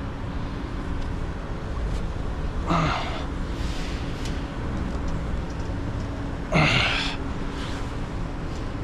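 A steady hum with a faint held tone, broken twice by short sighs of effort, about three seconds in and again about six and a half seconds in.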